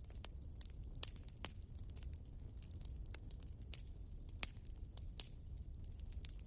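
Log fire in a fireplace crackling: irregular sharp pops and snaps, several a second, over a low steady rumble, with one louder pop a little past the middle.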